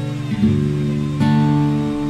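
Background music: guitar chords ringing, a new chord struck about half a second in and another a little after a second in.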